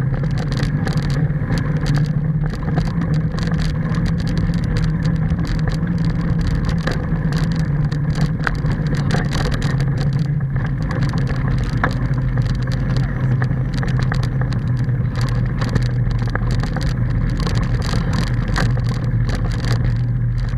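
Steady rumbling noise of a bicycle rolling along a concrete path, picked up by a bike-mounted action camera. It is tyre and wind noise with a low hum, and small clicks and rattles run through it from bumps in the path.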